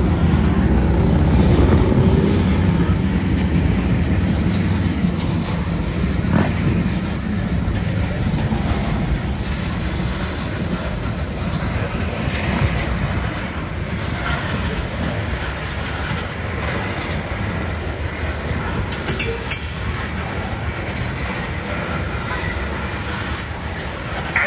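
Norfolk Southern train rolling past a grade crossing: a steady low rumble of cars and wheels, with clickety-clack over the rail joints and a little wheel squeal. The rumble is loudest in the first couple of seconds, then eases slowly.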